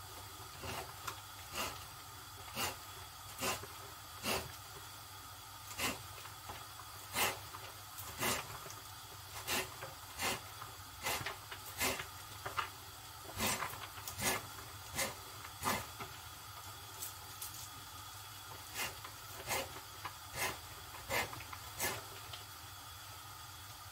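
Kitchen knife chopping fresh basil leaves on a cutting board: short sharp taps, irregular, about one a second, stopping near the end.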